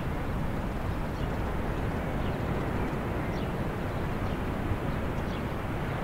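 Steady outdoor rumble, strongest in the low end, with a few faint short high chirps that drop in pitch scattered through it.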